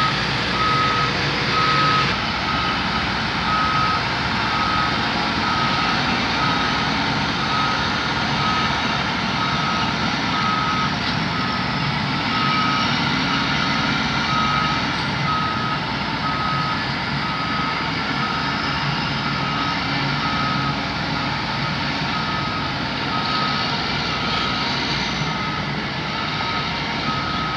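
Drilling rig's travel alarm beeping steadily, about once a second, over the rig's engine running as it moves off the lowboy trailer.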